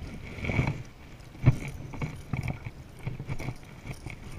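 Small choppy waves slapping against a kayak hull, with irregular knocks on the hull. The loudest knock comes about a second and a half in.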